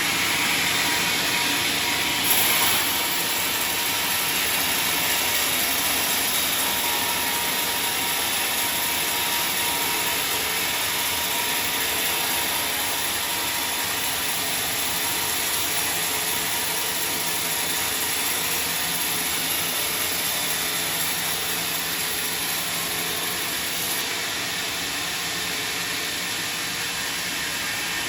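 Sawmill saw cutting through a large log, a steady loud machine noise with a hissing high edge. The hissing edge gets brighter about two seconds in and eases off near the end.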